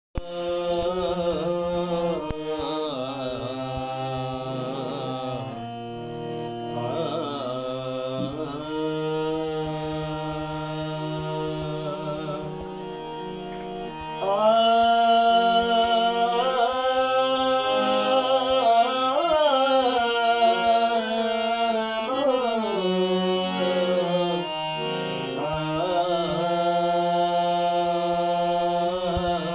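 A man singing to his own harmonium: the reed organ holds steady sustained notes under a sliding, ornamented vocal line. Voice and harmonium grow louder about halfway through.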